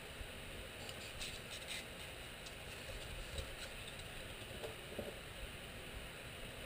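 Faint handling sounds: soft rustles and a few light ticks as hands press a plastic wiring conduit down into a channel cut in a panel.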